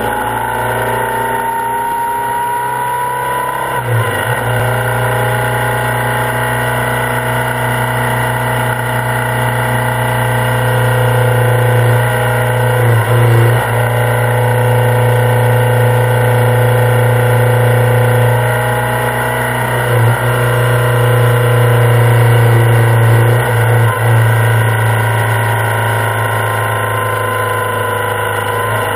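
BMW R65 flat-twin motorcycle engine running on the road, its pitch rising over the first few seconds as it accelerates, then holding a steady note broken briefly a few times, as at gear changes.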